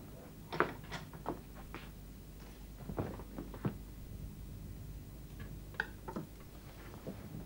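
Irregular light clicks and knocks of chopsticks, porcelain bowls and plates being laid on a dining table, a few with a short ring.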